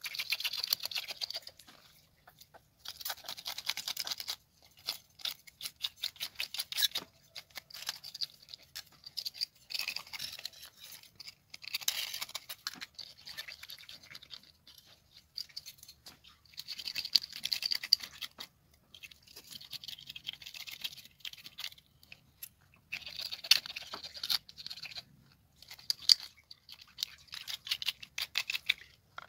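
A flat wooden stick scraping the scales off a whole tilapia, in rapid rasping strokes that come in bursts of a second or two with short pauses between.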